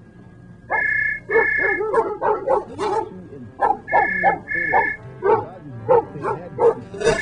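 Dog yipping and barking in quick runs. Each run is led by a pair of short, steady, high electronic-sounding tones, and the pattern repeats about every three seconds.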